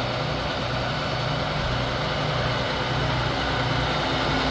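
Heavy diesel engine of a crane running steadily at an even speed, a low drone that neither rises nor falls.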